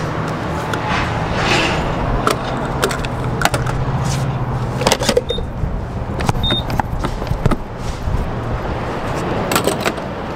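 Gas station fuel pump handling: scattered clicks and clunks over a steady low hum, with two short high beeps from the pump about halfway through.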